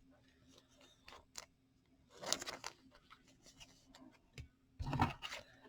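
Trading cards and plastic card sleeves being handled, with two brief rustles, the second with a soft bump.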